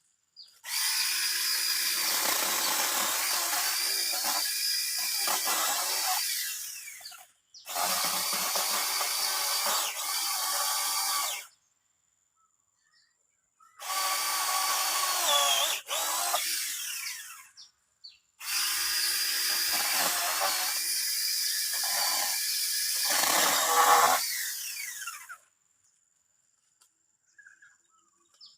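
Mini chainsaw running in four stretches of several seconds each with short pauses between, cutting through wood; the pitch and body of the sound shift as the chain bites under load.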